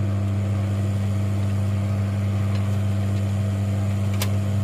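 Steady low electrical hum and buzz from workbench equipment, with two light clicks near the end.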